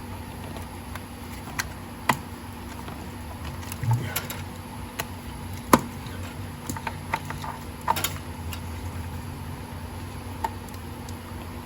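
Scattered sharp metal clinks and knocks of hand tools and parts being handled, the loudest about six and eight seconds in, over a steady low hum.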